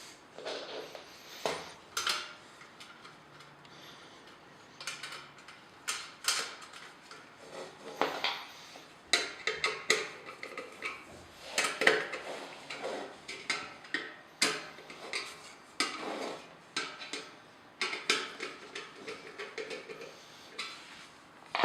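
Parts of a small exhaust fan being handled: irregular clicks, taps and clatter of hard pieces knocking together, some in quick runs.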